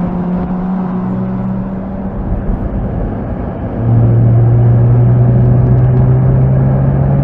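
Porsche Cayenne S E-Hybrid's 3.0-litre turbo V6 running while the car drives on the road, steady at first, then louder about four seconds in with its note rising slowly as it gathers speed.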